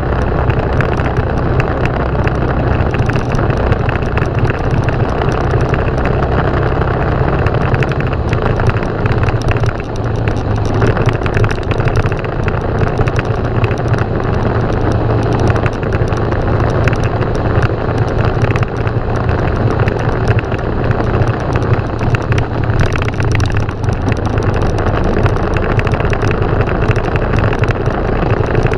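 Motorcycle engine running steadily while riding, with air noise over it. The low engine tone shifts slightly about eight seconds in, as the engine speed changes.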